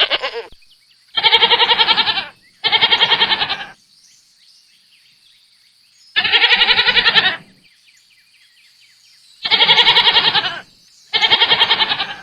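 Goat bleating: five wavering bleats of about a second each, coming as a pair, a single, then another pair, with pauses between, after the end of an earlier bleat at the very start.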